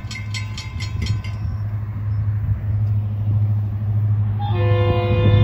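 A railroad crossing bell rings rapidly, about five strikes a second, over a steady low rumble, and stops about a second and a half in. Near the end an approaching Florida East Coast Railway diesel locomotive sounds its multi-tone air horn in one long chord.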